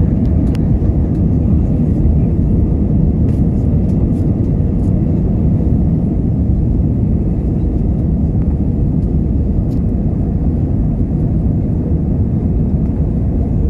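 Steady cabin noise of an Airbus A320 climbing out shortly after takeoff: an even, low rumble of the engines and airflow heard from a window seat over the wing.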